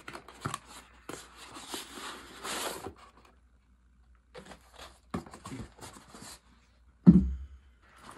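Rustling and crinkling of packaging and thin plastic as a deflated inflatable is pulled from its cardboard box and unfolded, in a few bursts with short pauses, and a single heavy thump about seven seconds in.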